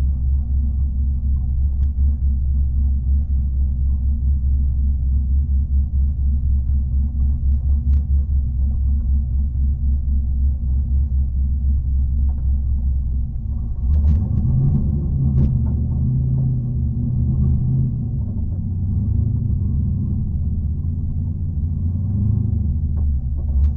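LS V8 engine of an R32 Skyline GT-R race car burbling at low revs, heard from inside the cabin. A little past halfway its rumble gets fuller.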